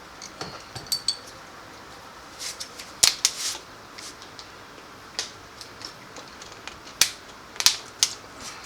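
Irregular clicks and clanks of hand tools being handled against metal and plastic, with sharp knocks about three seconds in and two more near the end.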